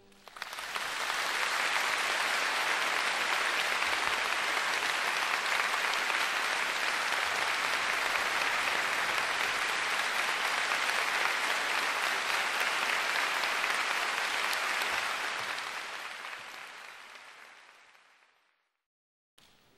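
Audience applauding, a dense steady clapping that dies away over the last few seconds.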